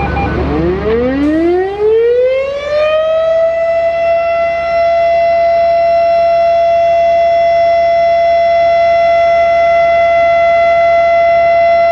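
Federal Signal Thunderbeam/RSH-10 outdoor warning siren, its reflector disc broken, winding up from a low growl to full pitch over about three seconds and then holding one loud, steady tone: the start of a 3-minute alert signal.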